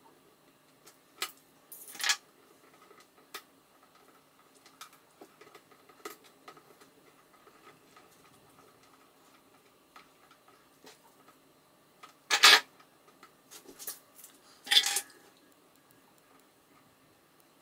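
Small metal hand tools and a cable being handled at a workbench: sparse light clicks and metallic clinks, with louder clatters about twelve and fifteen seconds in as tools are picked up and set down.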